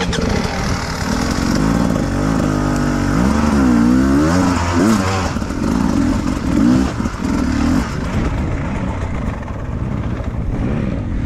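Beta 300RR two-stroke enduro motorcycle engine being ridden hard, its pitch falling and climbing with the throttle, with quick sharp revs and short choppy bursts in the middle, then running steadier and lower near the end.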